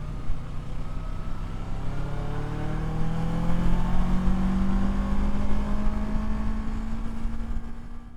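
Kawasaki Versys 650's parallel-twin engine pulling as the motorcycle accelerates, its pitch rising for about three seconds and then holding steady, with a low rumble underneath. The sound cuts off suddenly at the end.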